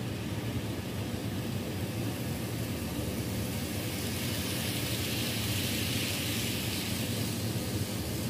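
Kato N-scale JR EH200 model locomotive running on its track: the hiss of its motor and wheels grows louder as it passes close by about halfway through, then eases, over a steady low hum.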